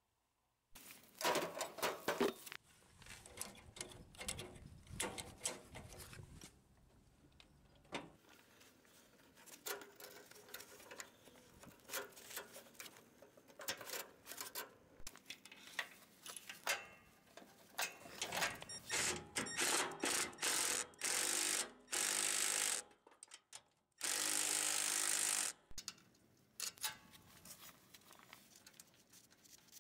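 Metal hand tools clicking and clanking against a lawn tractor transaxle, with several short bursts of a power tool in the second half.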